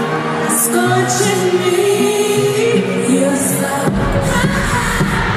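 Live R&B-pop song with a woman singing over the music; the bass and beat come in about four seconds in.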